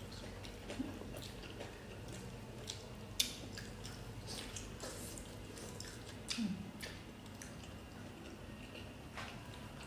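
People eating close to the microphone: chewing, with scattered small clicks and taps, the sharpest about three seconds in.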